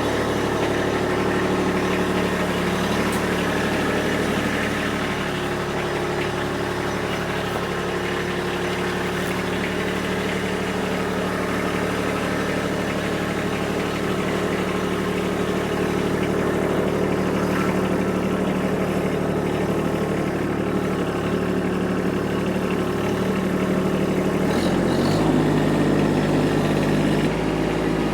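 Kubota tractor's diesel engine running steadily at a low speed; about 25 seconds in its note shifts as the engine speed changes.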